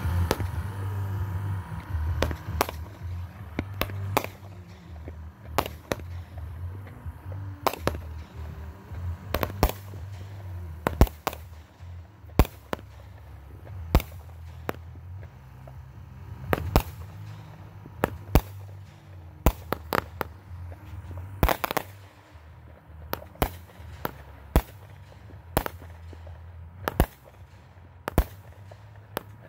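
Aerial firework shells bursting overhead: a long run of sharp bangs at irregular intervals, coming faster in the last third. A low steady rumble sits under the first half.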